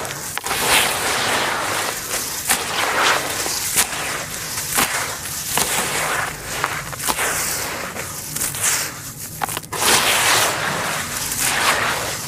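Crumbled sand-cement crushed in the hand and dropped back into a bowl of grit: a continuous gritty crunching and trickling, with several louder pours.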